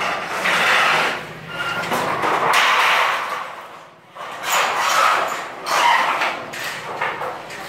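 Corrugated metal roofing sheets scraping and rattling as they are slid across a steel awning frame, in several swells with a short lull about four seconds in, with some sharp knocks and brief metallic ringing.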